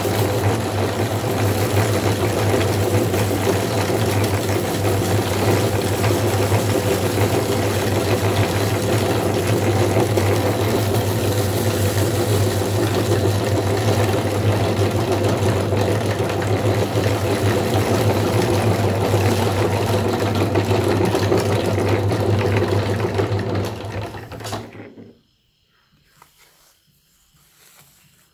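Electric meat grinder motor running steadily with a strong low hum, then switched off about 24 seconds in, leaving only faint handling sounds.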